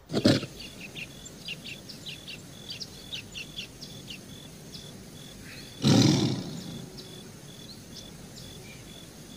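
Tiger roaring twice, once at the very start and again about six seconds in, over a forest ambience of many short bird chirps.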